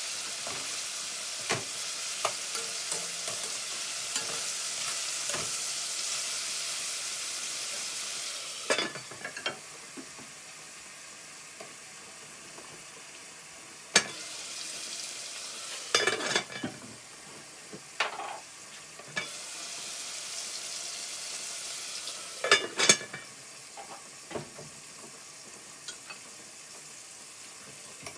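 Chopped tomatoes and peppers frying with a steady sizzle in an aluminium pot, stirred with a spoon that clicks against the pot. After about 8 seconds the sizzle gets quieter, and several clusters of metal clanks follow as the aluminium lid is handled and set on the pot.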